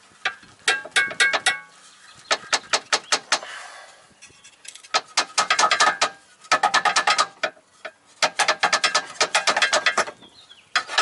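Socket ratchet wrench clicking in rapid bursts of about a second each, as it is swung back and forth to back out a front control arm bolt.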